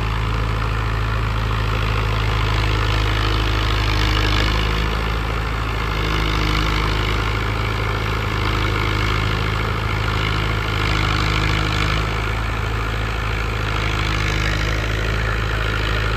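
Mahindra Yuvo 575 DI tractor's diesel engine running steadily under load, driving a Shaktiman Champion rotavator whose blades churn through the soil.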